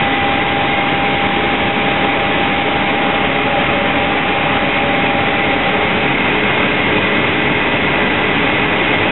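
Steady, loud rush of cooling-fan and airflow noise in a Boeing 777's electronics equipment bay, with two thin steady whines over it, one mid-pitched and one high.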